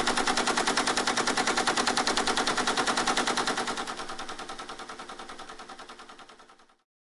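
Teletype ASR 33 clattering at a fast, even rate of about ten strokes a second, its normal speed of ten characters a second. It fades away over the last few seconds and stops just before the end.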